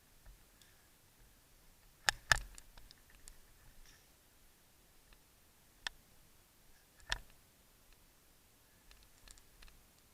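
A few sharp, isolated snaps among faint ticking: the loudest two in quick succession about two seconds in, then single ones near six and seven seconds.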